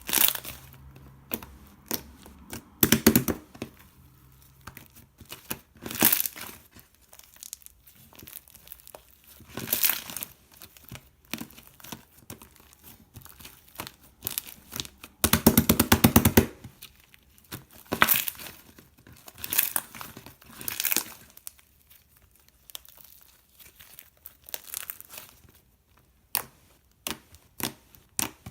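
Irregular bursts of crinkling and rustling from something being handled, with one rapid run of clicks lasting about a second past the middle.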